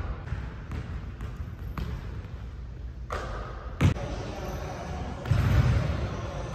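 Basketballs bouncing on a hardwood gym floor, echoing in a large hall: a few soft bounces in the first two seconds, one sharp bang a little before four seconds in, and a heavier thudding stretch near the end.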